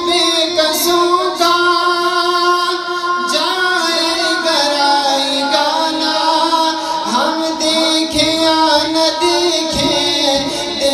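A man's solo voice singing an Urdu hamd unaccompanied into a microphone. He holds long drawn-out notes without words, sliding and wavering between pitches.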